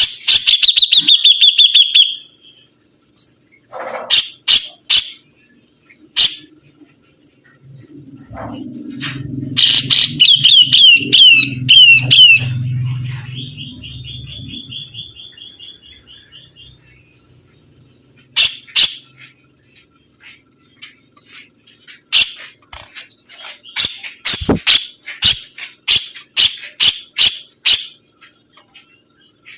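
Sibuntung songbird singing actively: loud bursts of sharp chips and fast trills, with a run of quick falling whistled notes about ten seconds in. A low hum sits under the song from about eight to fifteen seconds in.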